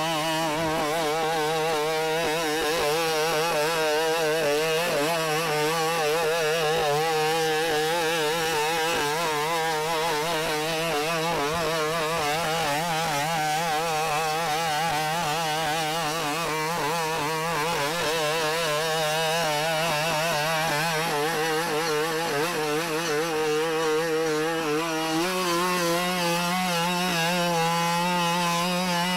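Boston Dynamics BigDog robot's small two-stroke engine, which drives its hydraulic pump, running with a steady chainsaw-like buzz whose pitch wavers constantly as it walks. The pitch steps up slightly near the end.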